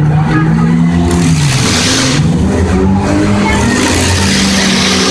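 Demolition derby car engines revving hard, one engine's pitch dropping about a second and a half in and climbing again, with loud stretches of hissing noise over it.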